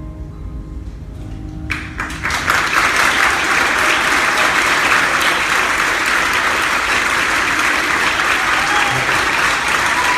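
The last notes of an ensemble piece die away, and about two seconds in an audience breaks into loud, sustained applause.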